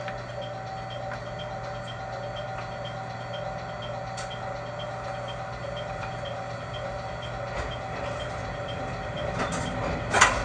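Steady hum of a JR Kyushu YC1 hybrid diesel railcar standing at a station, heard inside the car, with a faint even ticking about three times a second. A short loud burst of noise comes near the end.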